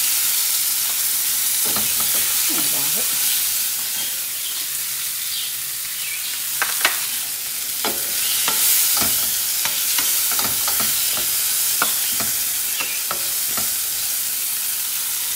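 Chopped tomatoes, onion and bell pepper sizzling in hot oil in a stainless steel frying pan, stirred with a spatula that scrapes and taps the pan at irregular moments.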